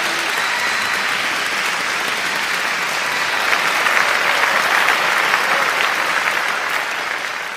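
Recorded applause, many hands clapping in a dense, steady patter, beginning to fade near the end.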